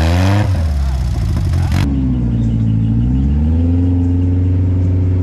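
Dune buggy engine revving, its pitch climbing under a rushing noise as the buggy churns through mud. About two seconds in this gives way to another buggy's engine running, its pitch dipping and rising before it settles on a steady note.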